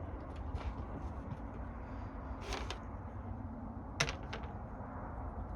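Small parts and tools being handled: a few scattered clicks and knocks, the sharpest about four seconds in, over a steady low hum.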